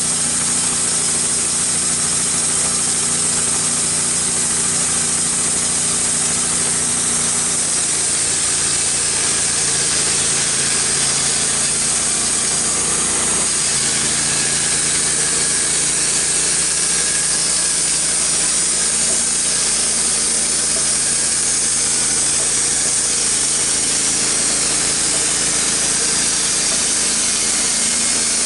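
Wood-Mizer LT15 band sawmill running, its engine under load as the band blade cuts through a red oak log; the engine note shifts about 13 seconds in.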